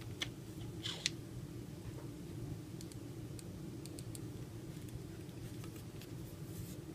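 Small clicks and taps of the aluminium spool and frame of a Redington Rise fly reel being handled and fitted back together, a few in the first second and a sharper click right at the end, over a low steady hum.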